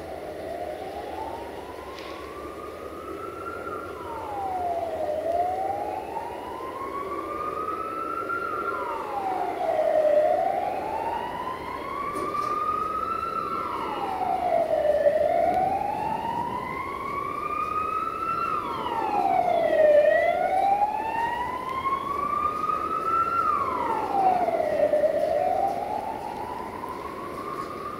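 Emergency-vehicle siren wailing. Each cycle rises slowly in pitch over about three seconds, then drops back in about one, repeating every four to five seconds. From about halfway through, a second, fainter and higher-pitched wail overlaps it.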